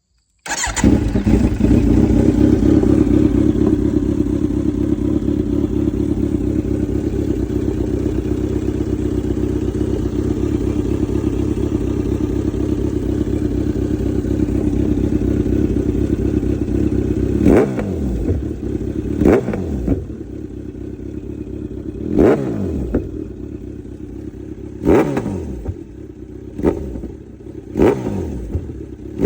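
Kawasaki Z900 inline-four motorcycle engine through an aftermarket exhaust, running at a steady speed for much of the time. In the last dozen seconds it idles between about six sharp throttle blips, each rev rising quickly and dropping straight back.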